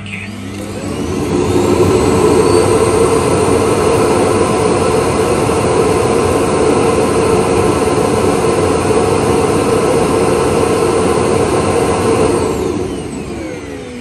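Self-emptying dock of a Roidmi Eve Plus robot vacuum running its suction motor to empty the robot's dust bin into the dock's bag. The motor spins up with a rising whine over the first couple of seconds, runs loud and steady, then winds down with a falling whine near the end.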